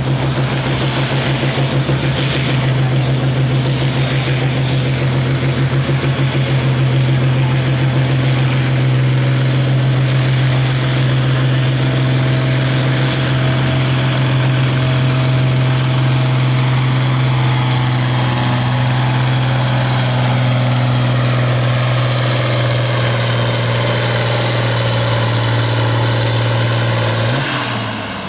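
International Harvester turbo diesel tractor engine running flat out under full load, a loud steady drone as it drags a weight-transfer pulling sled. About a second before the end the engine note drops and falls away as the pull ends.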